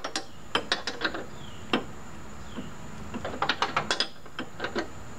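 Metal clicks and clinks from hand work on a riding mower's deck pulley and its nut and bolt, with a quick run of clicks about three and a half seconds in.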